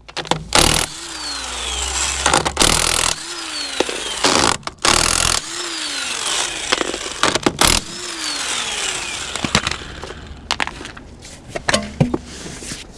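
Cordless impact wrench undoing the wheel bolts: four short bursts of rattling hammering about two seconds apart, each followed by the motor's whine falling away as it spins down. Loose clicks and knocks of the bolts and wheel being handled come near the end.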